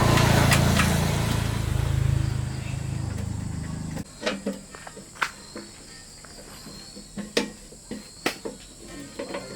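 YLHX 1500 generator's engine running, then cutting out abruptly about four seconds in. After it stops come scattered light clicks and knocks and a faint steady high-pitched tone.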